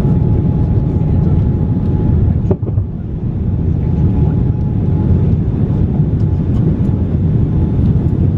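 Boeing 787-9 cabin noise heard from a window seat while airborne: a steady low rumble of engines and airflow with a faint steady whine. About two and a half seconds in there is a brief knock with a momentary dip in level.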